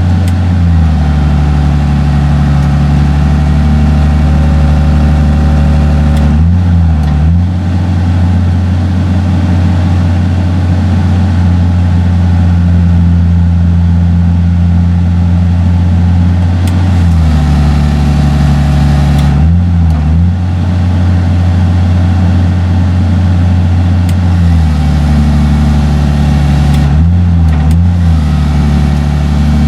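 John Deere 6068 six-cylinder diesel engine of a Fabtek 153 harvester running loud and steady, its speed shifting up and down several times. The engine is being run to warm up and test a freshly replaced thermostat.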